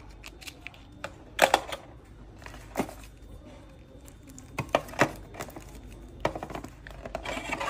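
Clear LDPE plastic bags holding phone accessories crinkling and clicking as they are handled and lifted from a plastic box tray. Several sharp separate clicks, then a longer crinkle near the end.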